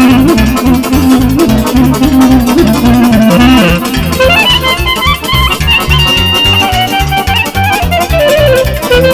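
Romanian lăutari taraf playing an instrumental passage: clarinet, accordion and cimbalom over a steady pulsing bass beat. About four seconds in, the lead line moves up from a low register to a higher one.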